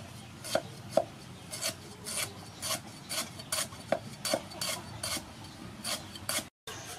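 Steel cleaver chopping lemongrass on a thick round wooden chopping block: a run of sharp knocks, roughly two to three a second, uneven in strength.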